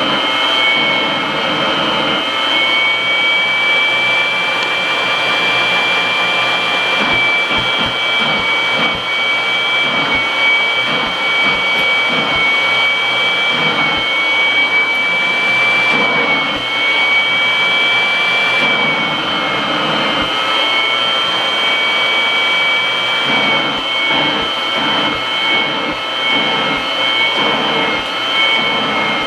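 Kirby vacuum cleaner running with its hose, a loud steady whine made of several high tones that waver slightly in pitch. An uneven low flutter comes and goes through the middle and the latter part.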